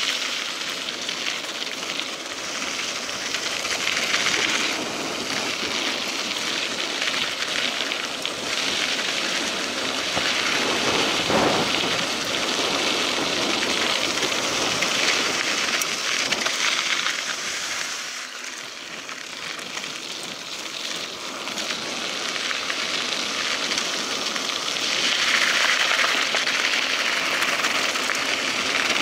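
Mountain bike tyres rolling over a gravel dirt road at riding speed: a steady, noisy rush that swells and eases several times and dips briefly about two-thirds through.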